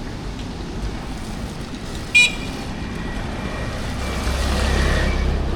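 Street traffic, with one short, high-pitched horn beep about two seconds in and a vehicle passing close, growing louder near the end.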